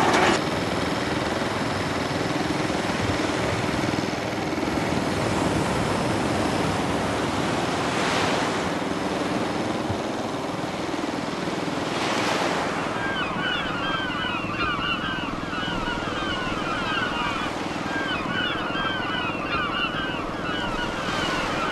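Sea waves washing with a steady rush that swells twice, a few seconds apart, over a faint low hum. From about halfway through, small birds chirp over it again and again.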